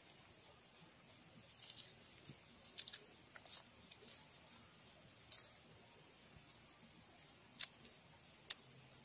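Red turi (Sesbania grandiflora) flowers being split and stripped of their pistils by hand: faint crisp crackling and snapping of petals, a scattered run of it in the first half and two sharp snaps near the end.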